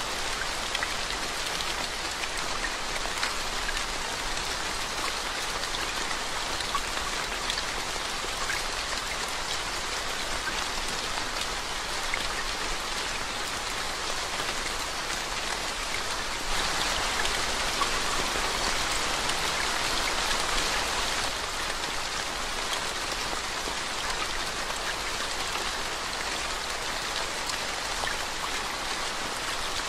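Steady rain falling on a waterlogged road, drops splashing into standing water. The rain grows heavier for a few seconds a little past halfway through.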